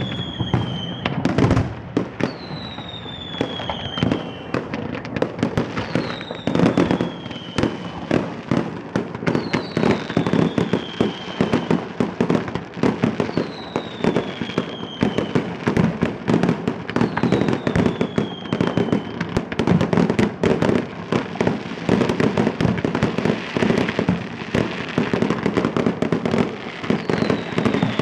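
Fireworks display: a dense, continuous run of bangs and crackling. A high whistle that falls in pitch recurs about every three and a half seconds.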